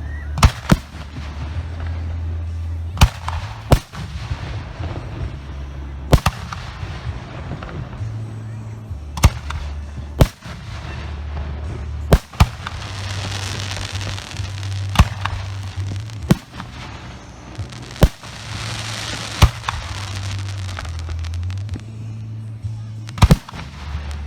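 Aerial firework shells from a professional display bursting: about fifteen sharp booms at irregular intervals, some in quick pairs, with two spells of crackling effects in between.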